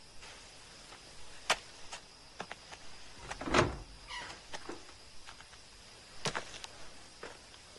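A door being handled: scattered wooden knocks and clicks, the loudest a dull thump about halfway through. A faint steady chirp of crickets runs underneath.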